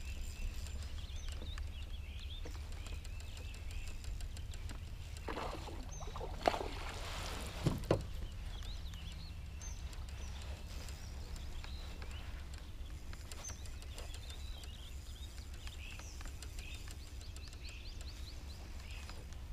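Steady low wind rumble on the camera microphone over a kayak out on the water, with birds chirping from the wooded shore. A couple of short, louder knocks or splashes come about six and a half and eight seconds in.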